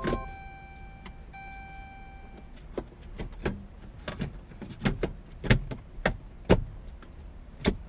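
Irregular sharp clicks and knocks of plastic interior trim being handled and fitted back into place, spaced unevenly, with the loudest few near the end.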